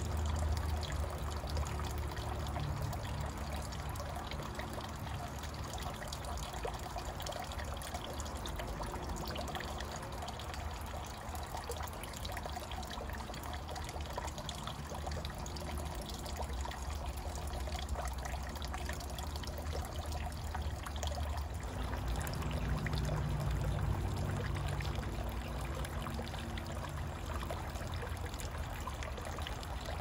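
A thin stream of water from a bamboo spout splashing steadily into a water-filled stone basin; the splashing changes slightly about two-thirds of the way through.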